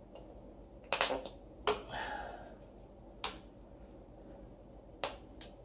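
A handful of short, sharp clicks and knocks from a threaded steel anchor bolt being set into a freshly epoxied hole in a concrete floor while tools are handled. The loudest click comes about a second in.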